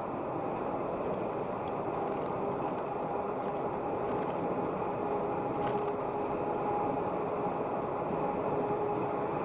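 Steady engine and road noise heard inside a moving vehicle's cab, with a faint constant hum running through it.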